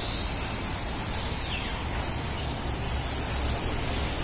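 Several electric RC on-road cars racing on a track: their motors give a high whine that glides up and down in pitch as they speed up, slow and pass, over a steady low rumble.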